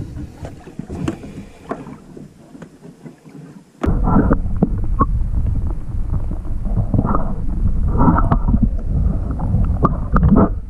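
Water splashing at the side of the boat as a big northern pike is released by hand. About four seconds in, this gives way abruptly to a louder, muffled rumbling and sloshing of water picked up by a camera held underwater.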